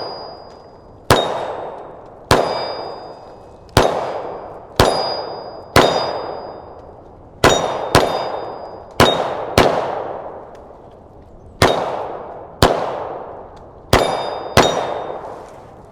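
Glock 43X 9mm pistol shots, each hit ringing a steel target plate with a high metallic tone that dies away slowly. About a dozen shots, several fired as quick pairs about half a second apart (double taps).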